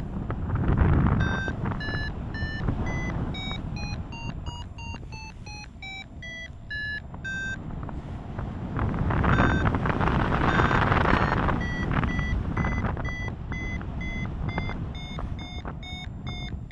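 Paragliding variometer sounding its climb tone: quick short beeps, about three a second, whose pitch steps up and down and then holds steady, signalling the glider is rising in lift. Wind rushes over the microphone throughout, swelling about a second in and again midway.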